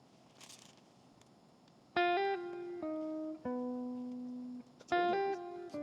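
Background music: a plucked guitar melody starting about two seconds in, its opening phrase repeating near the end, after a quiet start.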